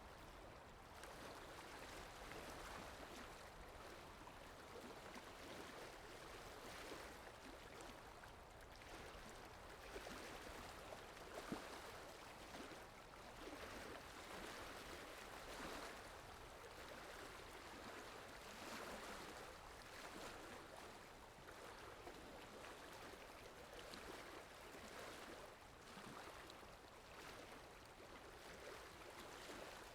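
Steady rain falling, an even hiss of water that swells and eases every few seconds, with one brief sharper drop or tick about a third of the way in.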